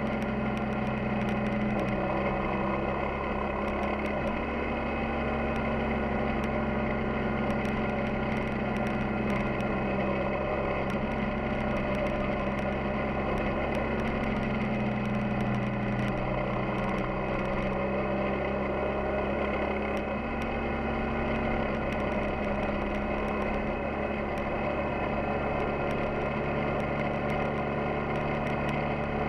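Yamaha XTZ 250 Ténéré's single-cylinder engine running steadily while riding, its pitch shifting slightly a couple of times, with faint scattered ticks over the top.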